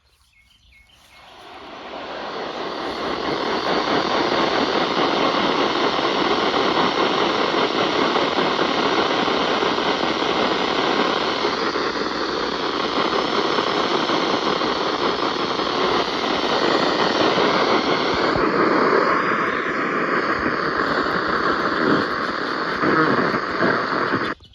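Radio static: a steady hiss of noise with no tone in it, swelling in over the first few seconds and cutting off abruptly near the end.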